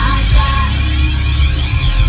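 Loud rock music: a band with guitar and heavy bass, and a singer holding notes.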